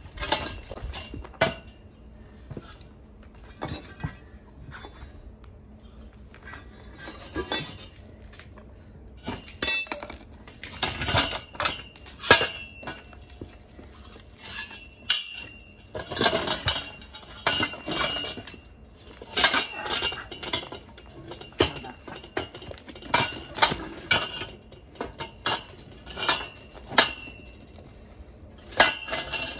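Steel pipes and pipe clamps of a homemade bead breaker clinking and clanking against each other as they are handled. There are many sharp metal strikes in irregular clusters, each with a short high ring.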